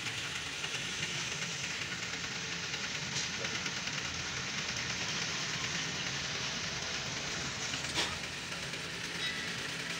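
A steady rushing background noise, with a single sharp knock about eight seconds in as the plastic lamp housing is handled.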